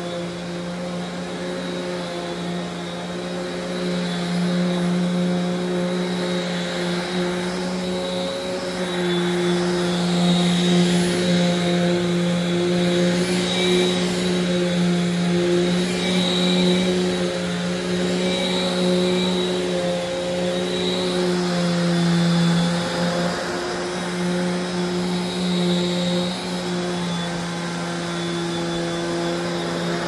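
Simplicity 5000-series upright vacuum cleaner running, its motor humming at a steady pitch under the rush of air. The airflow swells and fades about every two and a half seconds as it is pushed back and forth over a carpet rug.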